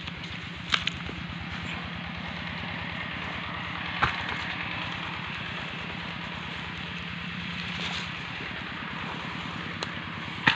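A small engine idling steadily in the background, a low hum with an even pulse. A few short sharp knocks come about a second in, at about four seconds and near the end.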